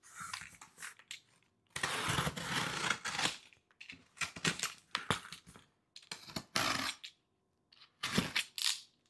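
Cardboard shipping box and its packing being handled and opened: rustling and scraping in irregular short spells, the longest lasting about a second and a half, about two seconds in.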